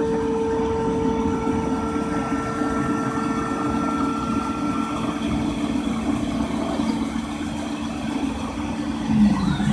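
Five-axis CNC woodworking machine running, a steady hum with a whine that fades out about two-thirds of the way in. Near the end a few short tones slide up and down in pitch.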